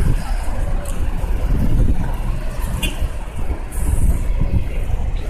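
Street traffic: cars and a city bus running past with a steady rumble, and a brief hiss about four seconds in.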